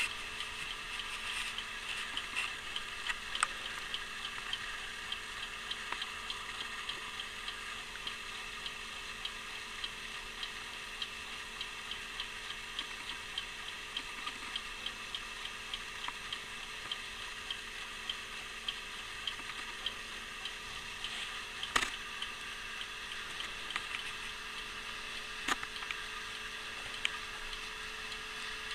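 Antique officer's alarm clock ticking steadily, its balance wheel and spiral hairspring escapement giving a fast, even run of small ticks, with two sharper louder knocks in the last third.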